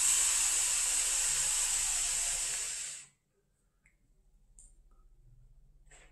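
A long breathy hiss of a big cloud of vape exhaled, lasting about three seconds and stopping suddenly.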